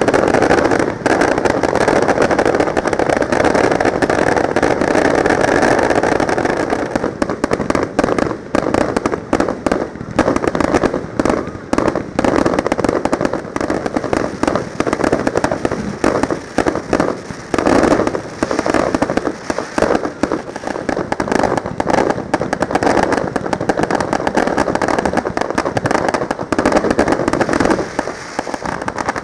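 Fireworks display: rapid-fire volley ("machine-gun") fireworks going off in a dense string of sharp reports together with starmine shells bursting. The reports are packed almost continuously for the first several seconds, then come as separate, spikier cracks.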